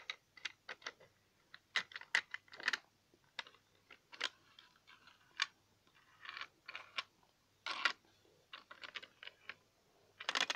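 Irregular clicks, taps and short scrapes of small plastic toy pieces being handled: a toy train engine pushed and set down on the plastic track of a fold-open playset.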